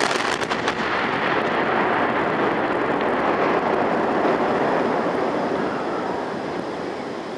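Explosive demolition charges cutting a steel truss bridge span: a quick series of sharp cracks in the first second, then a long rumble as the steelwork comes down, slowly fading.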